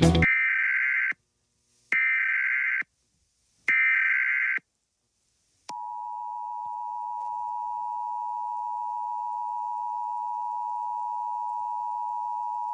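Emergency Alert System tones: three short buzzy SAME header data bursts about a second apart, then, about six seconds in, the steady two-tone attention signal, two close pitches sounding together and a little quieter than the bursts.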